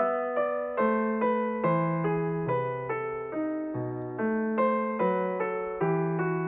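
Background piano music: a slow, even run of broken chords, a new note about every half second, each ringing and fading.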